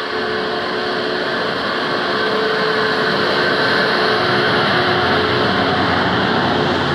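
Train running along the track, a steady mechanical roar with a faint hum, growing a little louder about two seconds in.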